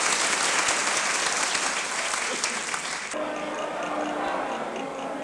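A large crowd applauding, cut off abruptly about three seconds in. It gives way to quieter music with a light, regular ticking beat.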